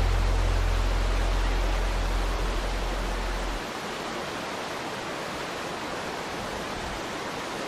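Waterfall: a steady, even rush of falling water. A low deep hum under it fades out about halfway through.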